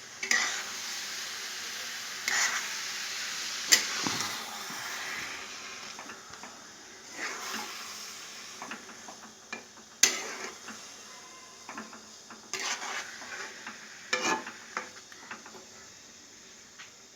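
Grated coconut frying in oil in a pan, sizzling, while a spatula stirs it slowly with scrapes and sharp knocks against the pan every few seconds. The sizzle fades gradually over the stretch.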